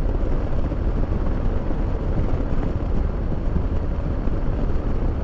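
Harley-Davidson Street Glide's V-twin engine running steadily at cruising speed, mixed with wind rushing over the microphone and tyre noise.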